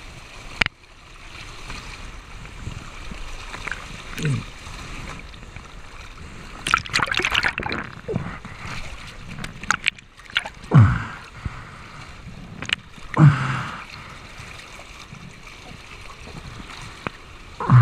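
Rushing whitewater of a river standing wave heard from a camera at water level, with water splashing over the camera several times in loud, sudden gushes.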